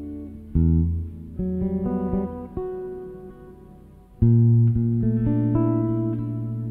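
Solo jazz guitar played on a Stratocaster-style electric guitar. A chord is struck about half a second in, followed by a few single notes that ring and fade. A louder chord is struck about four seconds in and left ringing.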